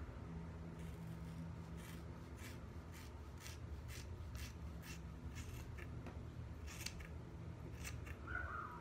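Household scissors snipping through a thick gathered bunch of wet hair: a dozen or so short, crisp cuts, roughly one to two a second.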